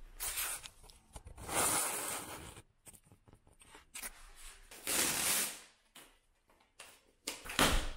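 Cardboard flat-pack furniture box being torn open by hand: three tearing rips of about a second each, with smaller rustles and knocks of the cardboard between.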